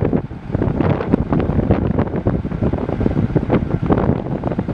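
Wind buffeting the microphone in irregular gusts, over a steady low rumble.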